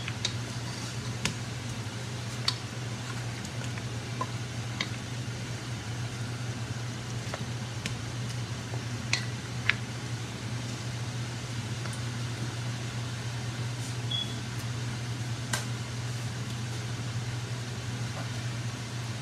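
Steady hum of a range hood fan, with scattered sharp clicks of a wooden spoon knocking against the metal pan as the oxtail is stirred.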